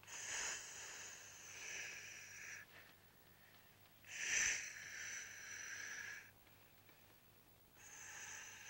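Slow, heavy breathing: three long, hissing breaths about four seconds apart, like a diver breathing through a mouthpiece.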